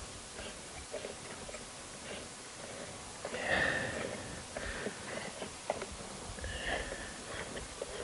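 Faint clicks, scrapes and rustles of gloved hands working at the hopper of a switched-off electric garden shredder. A louder rustle comes about three and a half seconds in and a smaller one near seven seconds.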